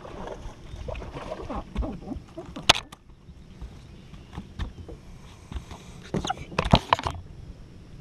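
A hooked bass being reeled in and swung aboard a bass boat: rustling and knocks on the deck, with one sharp loud knock a little under three seconds in and a cluster of loud thumps around six to seven seconds in as the fish is landed and handled.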